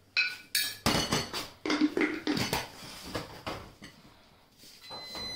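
Kitchen clatter: a quick run of clinks and knocks as a glass jar and white crockery bowls are moved and set down on a stainless steel worktop, a few ringing briefly, then quieter handling.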